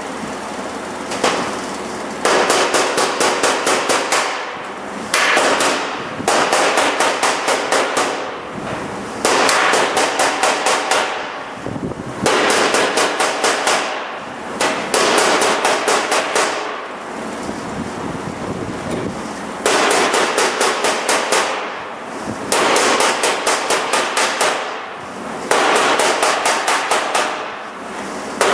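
MIG welder laying plug welds in sheet metal: about ten crackling bursts of one to two seconds each, with short pauses between them as the welder moves from hole to hole.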